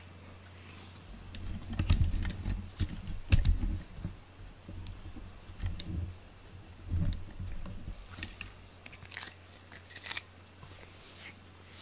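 Close handling noise: low knocks and rubbing near the microphone, followed about eight seconds in by a run of light clicks and scratchy ticks.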